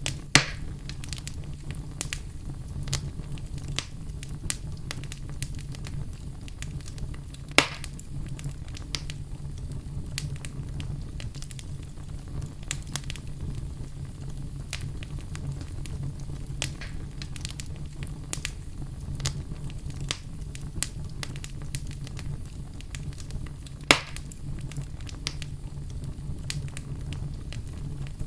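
Fireplace fire crackling: a steady stream of small crackles over a low, even rumble, with three loud pops, one right at the start, one about seven seconds later and one near the end.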